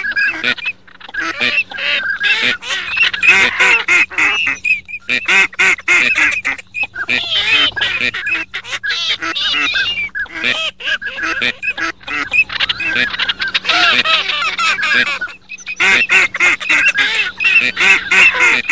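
Ducks calling in quick, overlapping quacks and honks, a dense nearly continuous chorus broken by a few short pauses.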